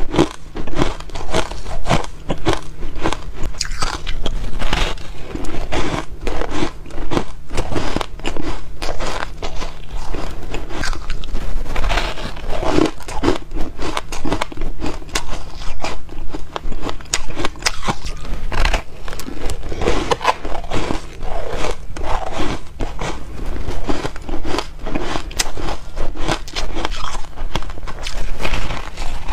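Bites into a frost-coated block of ice and chewing of the ice: a steady, unbroken run of crisp crunches.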